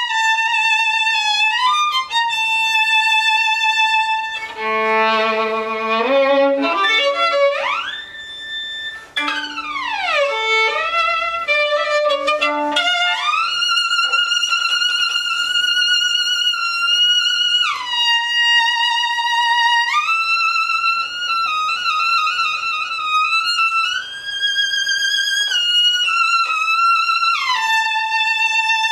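A violin playing, with no accompaniment showing: long high notes with vibrato, and a few seconds in a quick climb up from low notes followed by wide sliding glides up and down.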